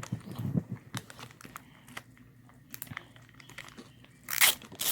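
Fast-food packaging being handled, likely a Polynesian dipping-sauce cup being opened: light crinkling and small clicks, with one short, loud crinkle near the end.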